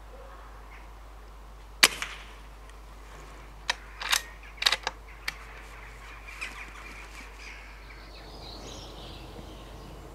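Air rifle firing once, a sharp crack about two seconds in, followed by a scatter of shorter sharp clicks and knocks over the next few seconds.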